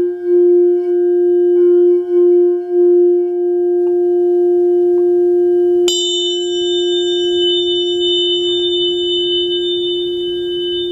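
Rose-quartz crystal singing bowl sounding a steady, pure F note, with a few brief dips early on. About six seconds in, a sharp strike adds a bright high ring on top, and the note rings on.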